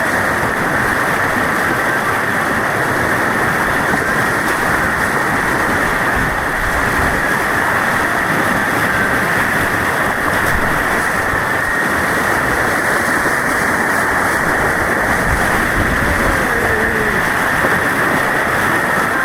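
Steady, loud rushing of white water on an artificial white-water kayak course, heard close up.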